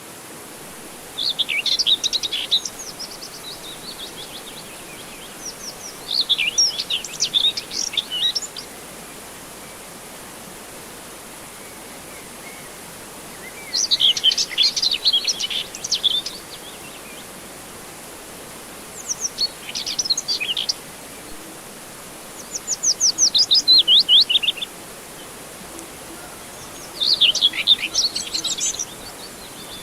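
Birds chirping in six short bursts of rapid, high chirps and trills a few seconds apart, one of them a run of evenly spaced falling notes, over a steady background hiss.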